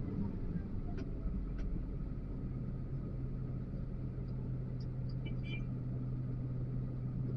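XCMG LW500HV wheel loader's diesel engine running steadily, heard from the operator's cab as a low hum that grows stronger about two and a half seconds in, with a few faint ticks.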